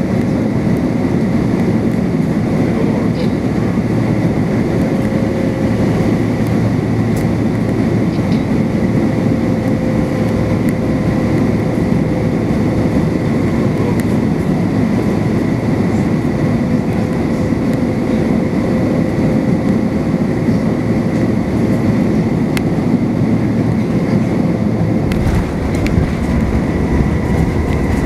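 Cabin noise inside an Airbus A350-941 on final approach: a steady loud rush of air over the fuselage with the Rolls-Royce Trent XWB engines' hum and a faint steady whine. About 25 seconds in, the sound changes as the aircraft reaches the runway and the main wheels touch down.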